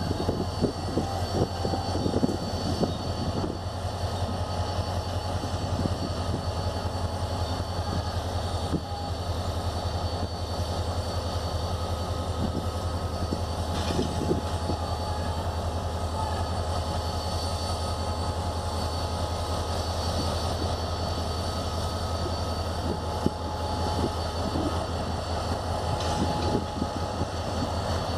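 HGMU-30 diesel-electric locomotive's engine running with a steady low drone at the head of a standing passenger train, with a few light knocks early on.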